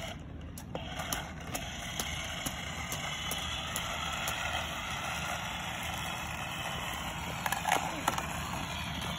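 Steady outdoor background noise, with a few sharp plastic clicks near the end as a toy RC monster truck is picked up and handled.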